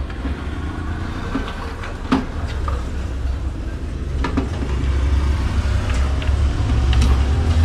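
A steady low engine-like rumble that grows louder from about halfway, with a few light clicks as a plastic dome security camera is turned on its ceiling mount.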